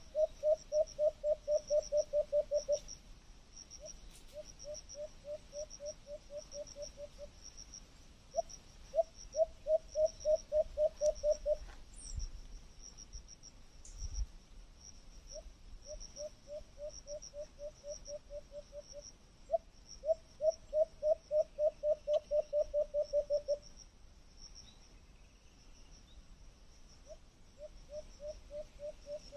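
A cricket chirping steadily in a high pulsing series, with a lower-pitched animal call repeated in runs of rapid notes, about five a second, each run lasting two to three seconds and coming back every several seconds. Two brief low thumps come near the middle.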